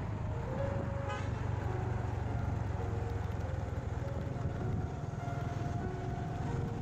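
Steady low rumble of a motorcycle ride, engine and road noise, with a simple background-music melody over it and a brief toot about a second in.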